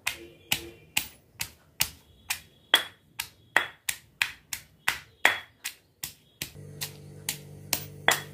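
Round stone pestle pounding green chillies in a stone mortar, even sharp knocks about two and a half times a second. A steady low hum comes in under the knocks near the end.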